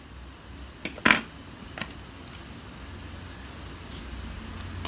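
Scissors cutting cotton crochet cord: two sharp clicks about a second in, the second louder, and a fainter click shortly after, over a low steady hum.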